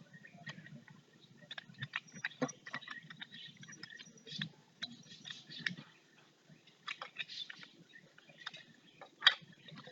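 Plastic toy armor pieces being handled: irregular light clicks and taps with faint rustling.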